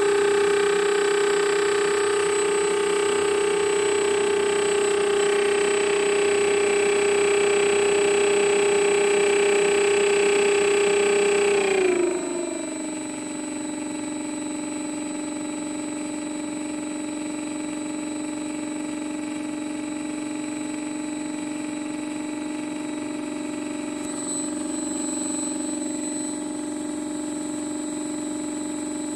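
3536 900 kV brushless outrunner motor spinning an 8x6 three-blade propeller at low throttle, giving a steady electric whine. About twelve seconds in, the pitch glides down and the whine gets quieter as the motor slows. Near the end it rises a little as the throttle is turned up slightly.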